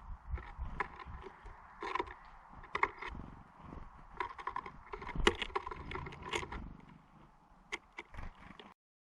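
Small birds at a wooden feeder: irregular taps, knocks and scrapes as they land, hop and peck at seed. The sound cuts off abruptly near the end.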